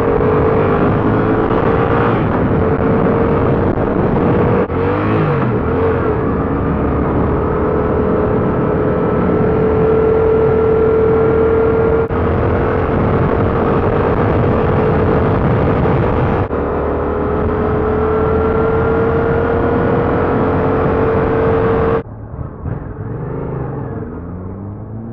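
2015 Yamaha FZ-07's parallel-twin engine running steadily under throttle, its pitch creeping slowly up, with a heavy rush of wind on a helmet microphone. It dips briefly a few times. Near the end the throttle closes and the engine drops to a quieter, lower run.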